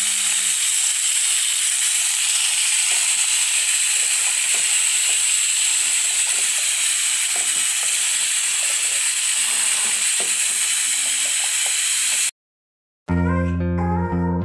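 Diced potato, chayote and zucchini frying in rendered sausage fat in a pot: a steady, loud sizzle, with light scraping of a silicone spatula as they are stirred. About twelve seconds in it cuts off abruptly, and after a moment of silence guitar music begins.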